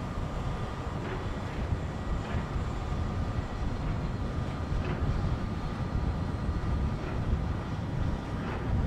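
Steady low rumble from the steam-powered laker Philip R. Clarke passing close by, with a faint steady hum above it.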